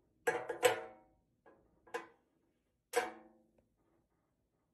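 Metal cleaning caddy clanking against a stone countertop and its wire handle knocking against its side. A quick cluster of clanks is followed by two lighter knocks and one more strong clank about three seconds in, and each strike rings briefly.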